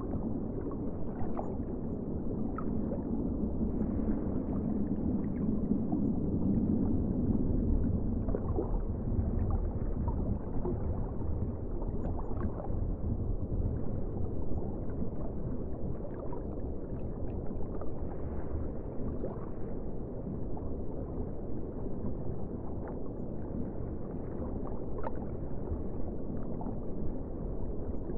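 Underwater ambience: a muffled, low rumbling wash of water with scattered faint clicks and pops. It swells louder for a few seconds near the start.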